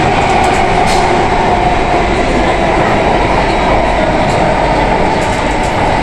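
Cabin noise of a Singapore MRT Circle Line C830 train running through a tunnel: a steady, loud rumble of wheels on rail, with a faint steady tone.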